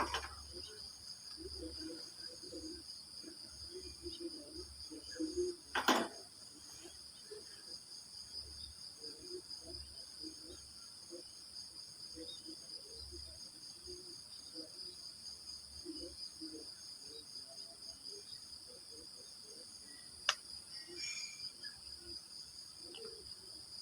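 Crickets chirping in a steady, pulsing high trill, with a few faint low sounds underneath. A sharp click cuts through about six seconds in and a smaller one near twenty seconds.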